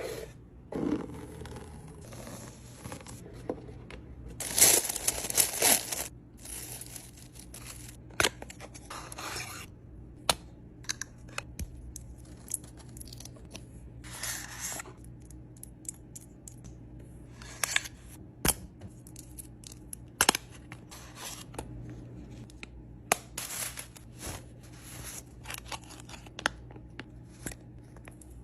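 Cosmetic packaging being opened and handled by hand: bursts of paper tearing and rustling, with scattered sharp clicks and taps of boxes and cases.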